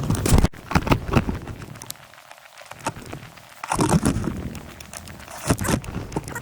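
Footsteps crunching in snow, in a few irregular bouts of crackly crunching with quieter gaps between.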